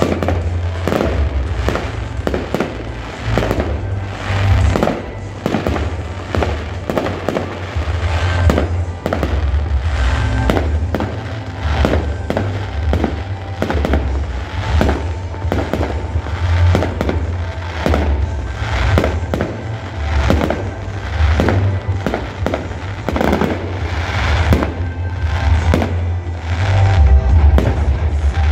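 Fireworks display going off: a dense, rapid run of bangs and crackles from shells and fountains, several a second, with no let-up.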